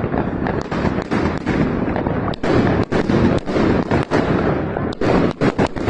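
Fireworks going off: many sharp bangs and cracks in quick, irregular succession over a continuous low rumble.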